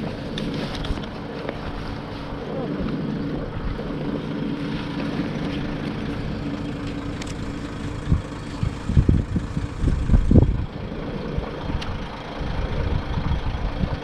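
Motorbike engine idling steadily under the rider, with a few seconds of heavy low thumping on the microphone about eight seconds in.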